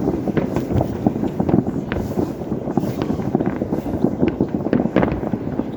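Many overlapping distant firework bangs and crackles from a New Year's Eve salute, a dense rumbling barrage with a few sharper cracks standing out.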